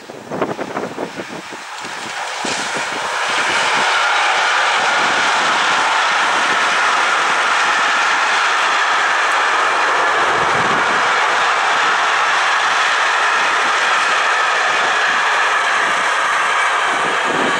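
Container freight train hauled by an electric locomotive passing close by: a steady, loud rolling rush of wagon wheels on the rails that builds over the first few seconds. Gusts of wind buffet the microphone at the start.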